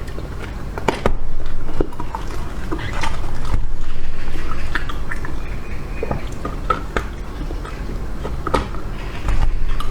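Close-up chewing and biting of an ice cream lychee, with irregular wet clicks and crackles of the mouth and food.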